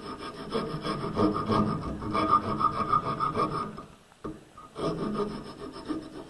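Hand file rasping across the edge of a wooden backscratcher blank in short, quick strokes, cutting a tooth groove at an angle. The filing stops for about a second partway through, then resumes.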